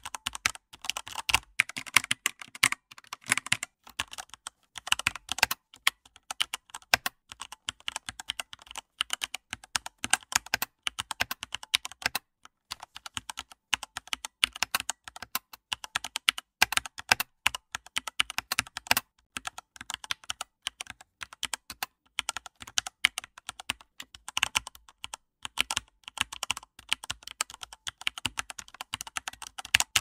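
Typing on a computer keyboard: a quick, irregular run of key clicks, broken by a few short pauses.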